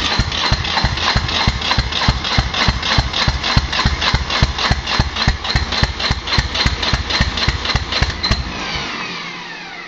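Ford compact diesel tractor engine turned over on the electric starter: a steady beat of about five compressions a second over a high starter whine, without firing. Near the end the key is released and the starter winds down with a falling whine. The cold engine is not starting despite a long glow-plug heat.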